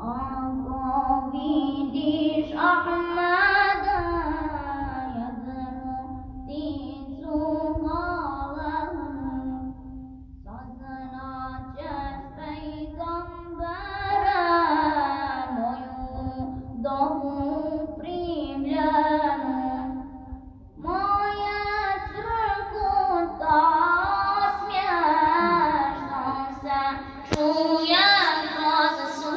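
A man's solo voice singing a Bosnian ilahija (Islamic devotional song) unaccompanied, in long ornamented phrases with brief pauses for breath between them.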